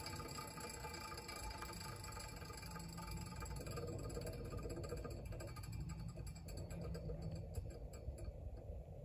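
Table saw coasting down after being switched off: the motor and blade's whine fades, its higher tones dying away about eight seconds in and leaving a low rumble as the blade slows toward a stop.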